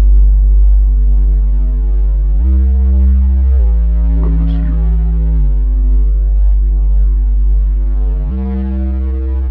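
Electronic music: held synthesizer chords over a deep bass drone, moving to a new chord every one to three seconds.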